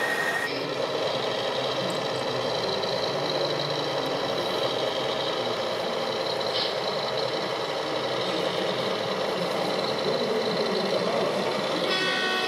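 Radio-controlled model truck's diesel engine sound idling steadily, from its sound unit. Music begins near the end.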